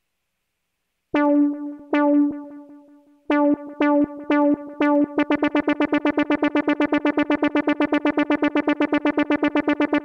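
Moog Muse analog polysynth on the "Easy Weezey" preset, sounding one bright synth note that starts sharply and dies away. It starts about a second in as two separate notes, then repeats faster and faster. From about five seconds in it becomes an even stream of about ten notes a second, as the arpeggiator clock division is set to 1/16.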